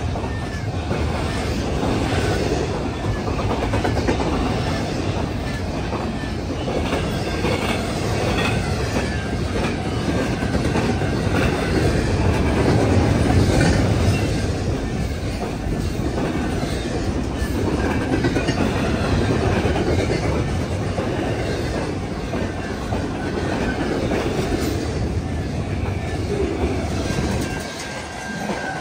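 Freight cars of the CN Z100 train rolling past at speed: a steady, loud rumble of steel wheels on rail. A faint thin wheel squeal comes in near the end.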